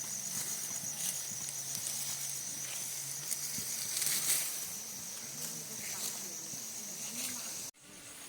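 Outdoor field ambience: a steady, high insect trill, with faint distant voices and scattered light clicks. The sound cuts off suddenly near the end.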